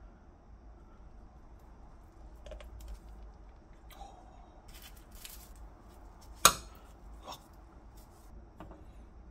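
Light clicks, taps and soft rustles of kitchen items being handled, with one sharp click about six and a half seconds in and two softer ones after it.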